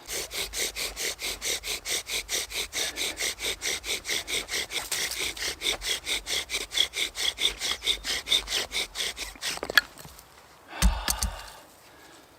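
Bow drill in use: a wooden spindle spun back and forth in a wooden hearth board by fast, even bow strokes, about five a second, a steady grinding of wood on wood as the spindle is driven to heat the hearth for an ember. The strokes stop just before ten seconds in, followed by a sharp click and a short low thump.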